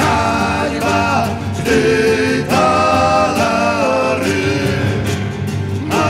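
Male voices singing a Polish sung-poetry song together, loud and full, over instrumental accompaniment, recorded live in concert. The whole ensemble has come in forcefully just before.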